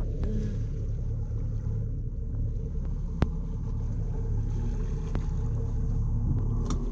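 A boat engine running steadily with a low rumble. There is one short sharp click about three seconds in.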